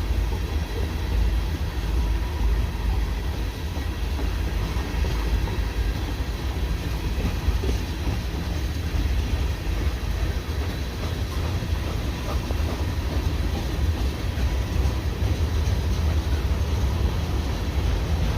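CN freight train rolling past, a steady rumble of wheels on rail, heard from inside a car.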